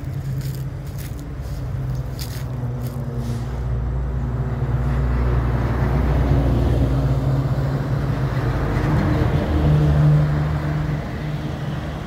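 A road vehicle's engine and tyres hum, growing louder over several seconds as it approaches and passes, then dropping off about eleven seconds in. Brief scraping clicks in the first few seconds.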